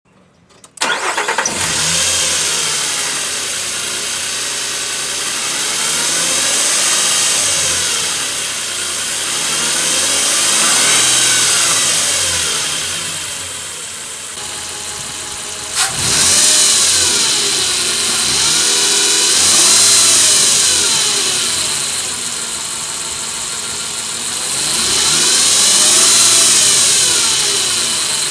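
2007 Nissan Frontier engine starting, then revved up and down repeatedly, with a whine that rises and falls in pitch with the revs and a sharp click partway through. The owner takes the whine for a common known engine fault covered by a Nissan technical bulletin.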